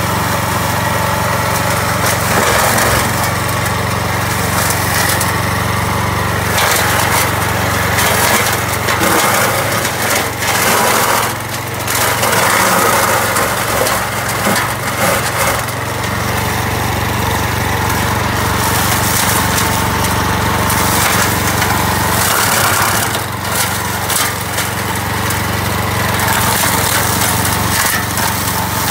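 Vezdekos TS 1000 walk-behind brush mower with its small petrol engine running steadily under load as its blades chop through dense brush and saplings, with irregular cracking and snapping of woody stems throughout.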